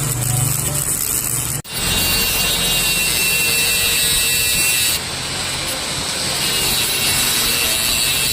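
Mini grinder running continuously, grinding at the stock air screw of a motorcycle carburettor to remove it. The sound cuts out abruptly about one and a half seconds in, then resumes; about five seconds in it steps down slightly.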